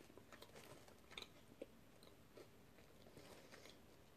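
Faint, scattered crunches of a person chewing puffed sweet corn snacks with a hard outer shell.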